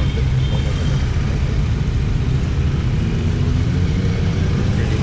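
Royal Enfield Interceptor 650 parallel-twin engine running steadily while riding along, heard from the rider's seat as a constant low rumble mixed with road noise.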